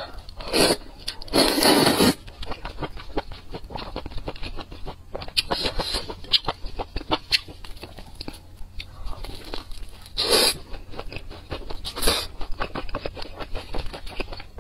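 Close-miked eating of a spicy noodle dish: a long noodle slurp about a second and a half in, then wet chewing with many small clicks and smacks, and two short, louder bites later on.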